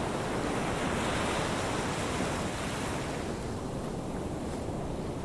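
Ocean surf: waves breaking and washing in a steady rushing wash, fullest about a second in and easing a little after about three seconds.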